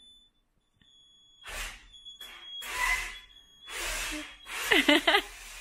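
A screwdriver running in short bursts, turning a homemade bicycle-part mechanism that raises and lowers a hanging bed frame. A thin high whine runs through the first half, and a short loud pitched sound comes near the end.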